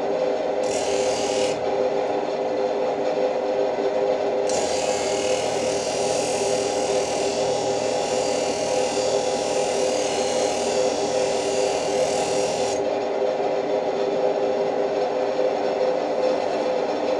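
Pedestal grinder motor running with a steady hum while a steel cleaver blade is held against its spinning abrasive wheel. The grinding of steel on the wheel comes in briefly about a second in, then runs steadily from about four seconds until about thirteen seconds, leaving only the motor hum after that.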